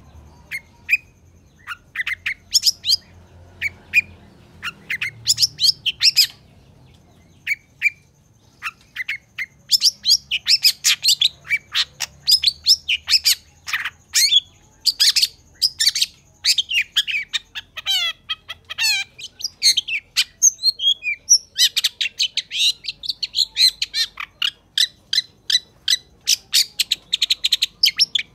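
Long-tailed shrike (cendet) in full song: a rapid, varied chatter of short, sharp, high notes. It thins out briefly about a quarter of the way in and breaks into a fast trill of quick repeated notes past the middle.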